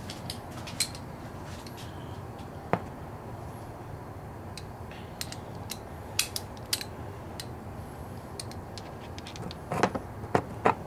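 Scattered sharp metallic clicks and taps of hand tools and parts being handled, over a steady low hum, with a quick cluster of three clicks near the end.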